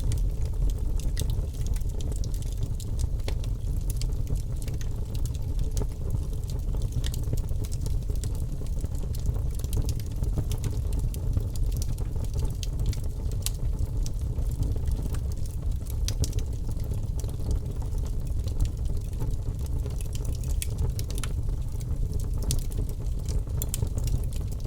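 Birch logs burning in a fireplace, crackling and popping irregularly over a steady low rumble of flame.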